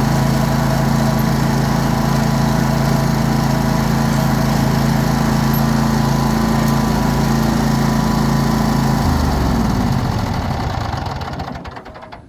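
Cub Cadet RZT 54 zero-turn mower engine running steadily, then shut off about nine seconds in, falling in pitch as it winds down to a stop.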